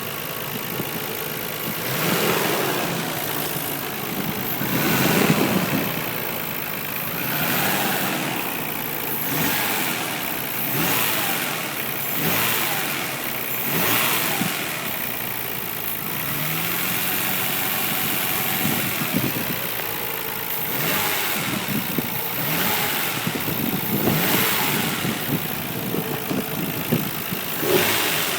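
Nissan Skyline R32 GT-R's RB26DETT twin-turbo straight-six engine running and being revved repeatedly in short blips, making a weird noise that the owner thinks sounds like a spun bearing.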